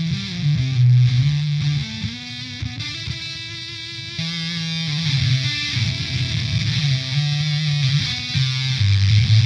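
Electric guitar played through a GameChanger Audio Plasma Coil fuzz pedal set to one lower and one upper octave together: thick fuzzed notes held and changed every half second to a second or so, with a deep sub-octave under them and a bright upper octave on top. The last note, near the end, is lower.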